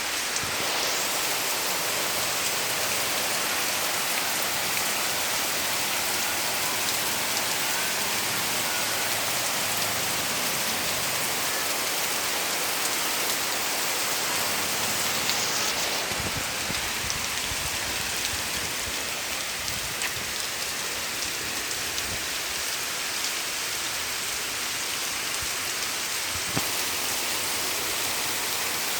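Heavy rain pouring down steadily, an even dense hiss of drops.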